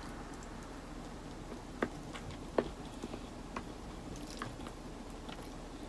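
A person eating with chopsticks: faint chewing and biting, with a few sharp clicks, the loudest about two and two and a half seconds in.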